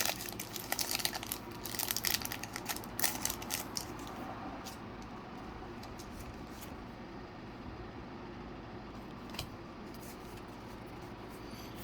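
Foil Pokémon booster pack wrapper crinkling and tearing open, a dense crackle for the first four seconds or so, then only faint handling sounds with a couple of soft clicks.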